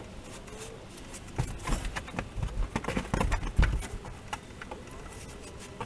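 Scattered light knocks and taps, something shifting among loose materials, with the loudest thump about three and a half seconds in.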